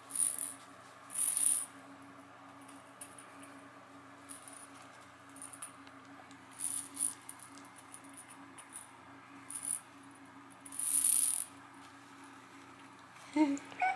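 Clear plastic rattle ball toy rattling in short, irregular bursts as a Yorkie puppy noses and paws it across a puppy pad. A brief squeak comes near the end.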